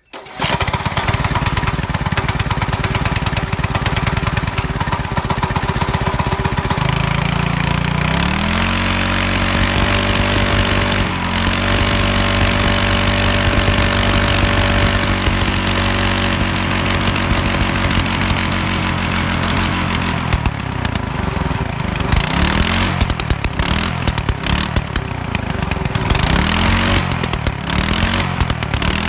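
Ungoverned 196cc single-cylinder four-stroke small engine running steadily, then revving up about seven seconds in and held at high revs. From about twenty seconds it is blipped up and down repeatedly, with exhaust pops as it decelerates.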